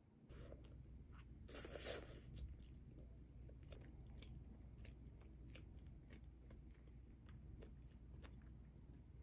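Instant ramen noodles slurped, with the loudest slurp about two seconds in, then quiet chewing and light clicks of metal chopsticks against the ceramic pot and plates.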